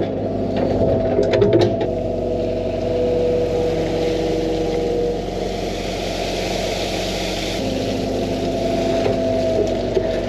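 Excavator diesel engine running steadily while the machine digs, with a hydraulic whine that shifts in pitch and a hiss that swells in the middle. There are a few clicks and knocks in the first two seconds.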